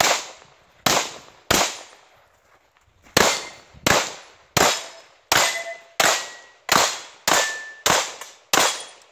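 Semi-automatic pistol shots, each with a short echo: three quick shots, a pause of about a second and a half, then a steady string of nine more at roughly a shot and a half per second.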